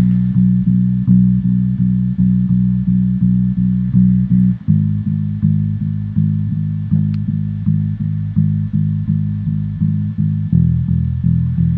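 Electric bass guitar playing the hook's bass line as a steady run of evenly repeated eighth notes, about three a second, moving to a new note about four and a half seconds in and again near the end.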